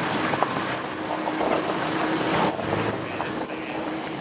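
A 4x4 vehicle running on an off-road trail, with a steady engine hum under rough noise and a few short knocks.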